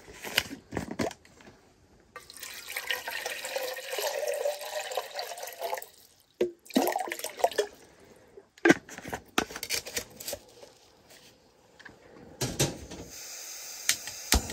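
Water poured from a bottle into a metal backpacking-stove pot for a few seconds, between clicks and knocks as a gas canister is screwed onto the stove and the pot is handled. A faint steady hiss begins near the end.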